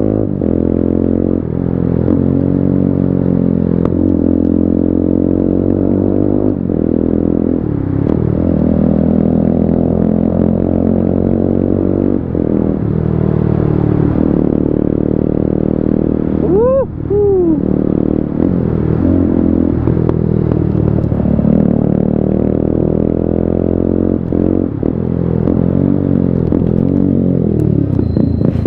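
TVS Apache RTR 200's single-cylinder engine running loud through an aftermarket Akrapovič slip-on exhaust while riding. The exhaust note climbs and falls with the throttle and gear changes, with a brief drop in revs about two-thirds of the way through.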